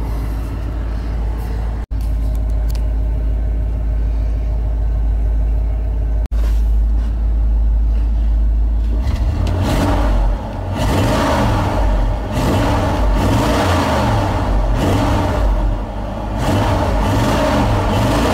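1978 GMC Suburban's original 350 V8 with Quadrajet carburettor, heard from inside the cab: warmed up after a cold start, it idles steadily with a low rumble, then about halfway through it is revved repeatedly with the throttle pedal, the engine note rising and falling.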